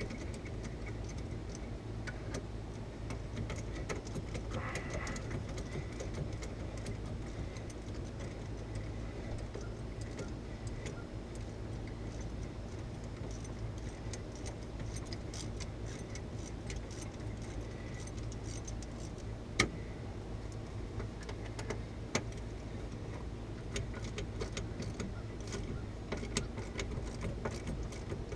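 Hand ratchet clicking in irregular runs as the front wheel hub's bolts are backed out by hand, with one sharper metal clack about two-thirds of the way in. A steady low hum sits underneath.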